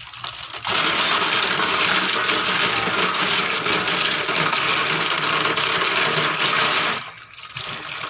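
Tap water running into a steel bowl of suso snails while a hand stirs them, with the shells clattering and rattling. The loud splashing drops off suddenly about seven seconds in.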